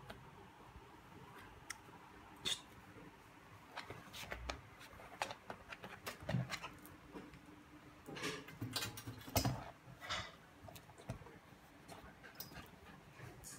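Beagle's claws and paws tapping and clicking on a glass table and tiled floor as it moves around, in scattered light ticks that come thickest in the middle.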